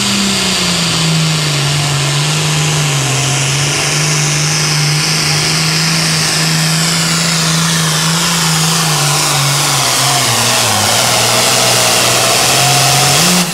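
Case IH Super Farm pulling tractor's turbocharged diesel engine running flat out under the load of the pulling sled, a steady loud drone with a high whistle that slowly falls in pitch. The engine note sags about two-thirds of the way through, then climbs again near the end.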